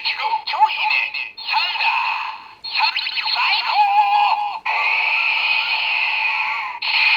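Kamen Rider Wizard DX WizarDriver transformation belt toy playing a ring's electronic voice call and sound effect through its small, tinny speaker. Choppy announcement bursts are followed, about halfway in, by a steady held synthesized tone.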